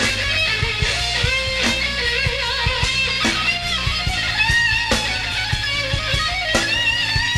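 Live rock band heard from the soundboard: a Stratocaster-style electric guitar plays a melodic lead line of held notes with wide vibrato over drums, with regular sharp drum hits throughout.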